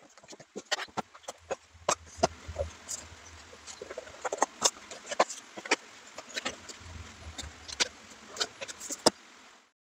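A cardboard gift box being handled: a steady run of knocks, taps and scraping as coffee boxes and a ceramic mug are packed into it and the lid is closed.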